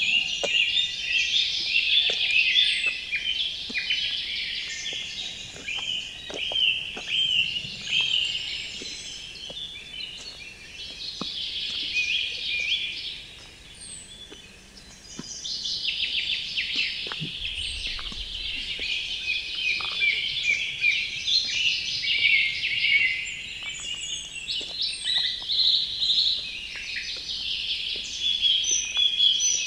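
A dense chorus of several songbirds singing at once, with fast overlapping chirps and trills. The chorus thins out for a moment about halfway through, then fills in again.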